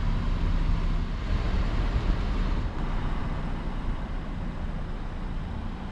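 Steady outdoor background noise: a low, fluctuating rumble with a hiss over it, easing slightly in level partway through.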